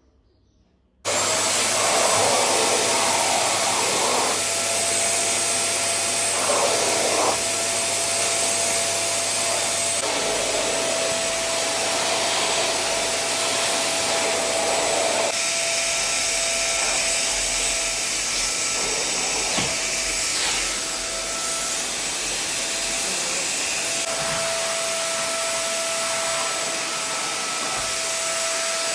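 Vacuum cleaner switched on about a second in and running steadily, its motor giving a constant whine over a loud rush of air.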